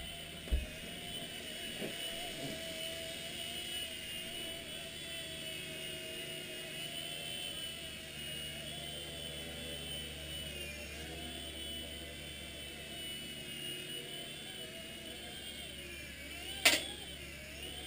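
Xieda 9958 micro RC helicopter's small electric motors and rotors whining steadily in indoor flight, the pitch wavering up and down as the throttle changes. A short thump about half a second in and a sharp knock near the end.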